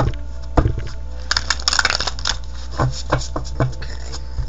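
A deck of tarot cards being riffle-shuffled: a quick rattling run of flicking cards about a second in, then several separate taps as the deck is squared and cut.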